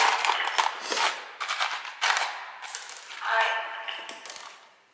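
Metal hand tools clinking and clattering, a rapid, irregular run of sharp metallic clicks, as Allen keys are tried one after another on fasteners.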